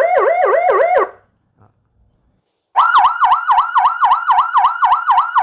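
A 200 W stainless-steel electronic siren horn driven by an AS920 amplifier, sounding a fast warbling yelp at about four sweeps a second in its low tone. It cuts off about a second in. Near the three-second mark it comes back at a higher pitch, the amplifier's high/low tone setting having been switched.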